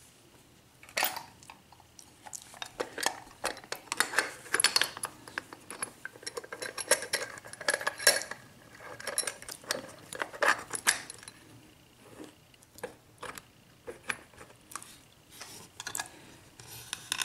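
Brass Sargent rim lock cylinder being handled and set into a metal lock holder: a run of irregular metallic clicks and clinks with a short ring, busiest between about three and eleven seconds in.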